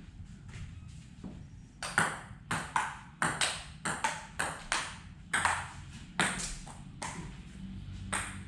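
Table-tennis rally: the ball clicking back and forth off the bats and a Stiga table, about two hits a second, starting about two seconds in and stopping near the end.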